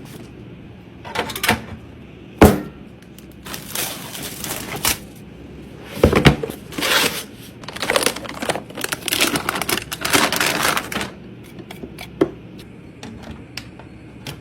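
Hands handling and fitting computer parts: irregular clicks, knocks and rustling scrapes, with a sharp knock about two and a half seconds in and denser rustling toward the middle.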